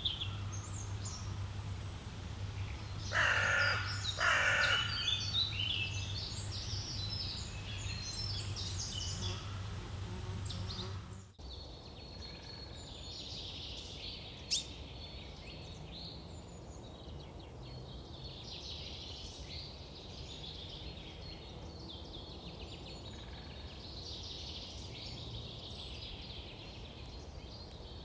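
Forest birdsong: small birds chirping and singing throughout, with a crow cawing twice, about a second apart, a few seconds in. A steady low hum under the first part cuts off suddenly partway through, and a single sharp click follows a few seconds later.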